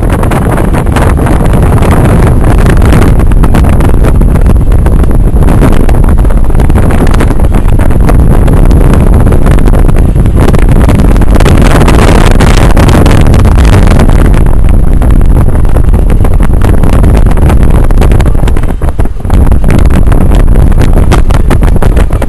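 Loud, distorting rumble of wind buffeting the microphone together with engine and road noise from a moving vehicle, dipping briefly a few seconds before the end.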